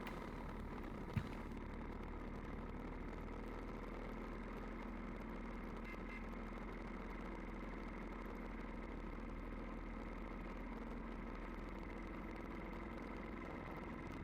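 An engine idling steadily: an even, low hum with a faint click about a second in.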